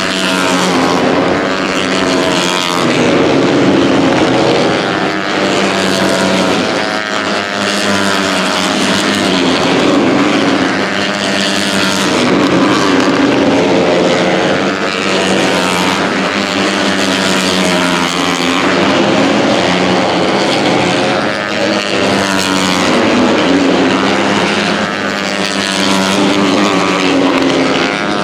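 A pack of KTM RC250RBR race bikes, 250cc four-stroke single-cylinder engines at high revs, many running at once. Their pitches keep rising and falling as the riders shift gears and the bikes pass by.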